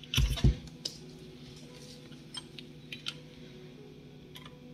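Multimeter probes and hands handling a graphics card on the bench: two dull knocks in the first half second, then scattered light clicks and ticks over a faint steady hum.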